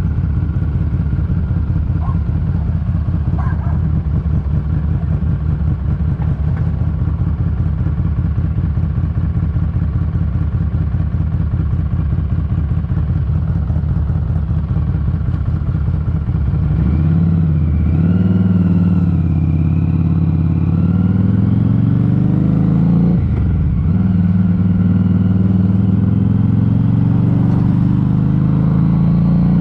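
Harley-Davidson Street 500's V-twin through an aftermarket TAB Performance exhaust, ticking over with an even pulsing beat. About two-thirds of the way through it pulls away, the note rising and dropping back at each gear change, then carries on louder and steadier.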